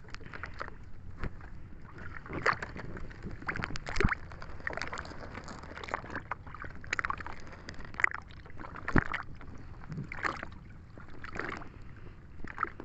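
Seawater splashing and sloshing in irregular bursts as a rope line of cottonii seaweed is hauled along the side of a small boat, with a couple of sharp knocks.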